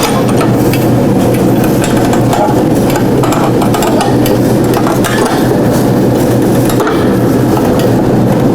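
Propane forge burner running with a steady rushing noise, with scattered faint clicks of steel being handled.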